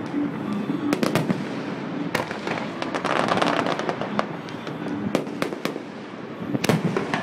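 Aerial fireworks going off: a string of sharp bangs and pops, with a dense stretch of crackling about three seconds in and another cluster of loud bangs near the end.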